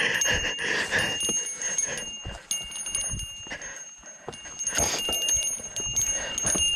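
A small bell ringing over and over as a mountain bike rides along rough trail, mixed with frequent sharp clicks and knocks from the bike.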